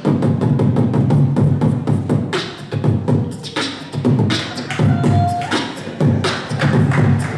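Human beatboxing into a cupped handheld microphone: sharp drum-like mouth clicks and snares in a rhythm over a low hummed bass line, with a brief whistled tone about five seconds in.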